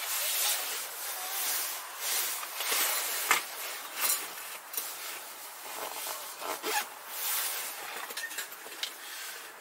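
Fabric rustling and rubbing as things are handled, uneven and continuous, with a couple of sharp light knocks about three and four seconds in.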